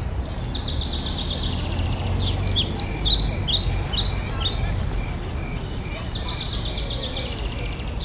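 A flock of small songbirds perched in bare trees, calling together: overlapping high, thin trills, with a run of quick descending notes from about two to four seconds in, over a low background rumble.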